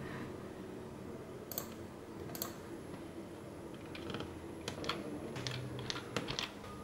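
Computer keyboard keys clicking as a Ctrl+C, Ctrl+V copy-and-paste shortcut is pressed. A few separate faint clicks come early on, and the presses come closer together from about four seconds in.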